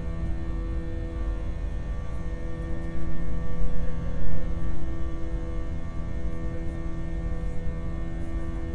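Airliner cabin noise during the climb after takeoff: a steady engine drone with a deep rumble and several steady humming tones, swelling briefly about a third of the way in.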